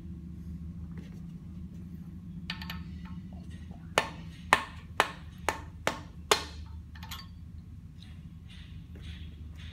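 Rubber mallet knocking six times, about half a second apart, on a bolt set against a housing locating pin of a rotary lobe pump, driving the pin out of the flange ring. Each knock is sharp with a short metallic ring.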